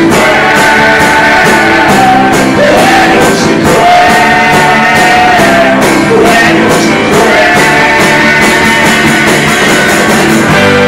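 Live rock band playing: a male lead singer singing into a handheld microphone over electric guitar and a drum kit keeping a steady beat.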